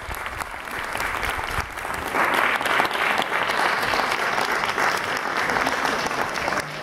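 Audience applauding, a dense patter of many hands clapping that swells louder about two seconds in.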